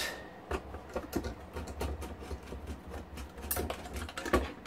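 Irregular light clicks and taps from a circuit board and its metal chassis being handled and turned over with a hand tool, a little sharper about three and a half seconds in.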